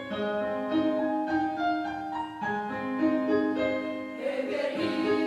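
Piano accompaniment playing a short interlude of held, stepping notes between choir phrases, with the choir coming back in about four seconds in.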